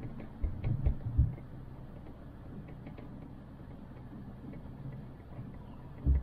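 Chairlift riding along its cable: a steady low hum with a few dull knocks in the first second and one more near the end, over faint light ticking.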